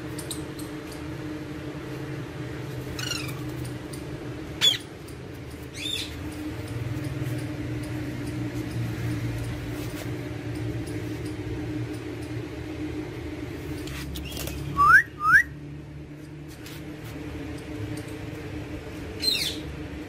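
Alexandrine parakeets giving a few scattered short calls over a steady low hum; the loudest is a quick pair of rising chirps about three-quarters of the way through.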